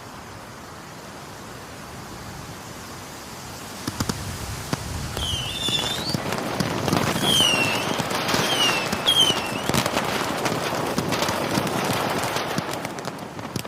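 Fireworks sound effect: a hiss swells over the first few seconds, then about four seconds in come dense crackling and sharp pops, with several short whistles, before it all fades near the end.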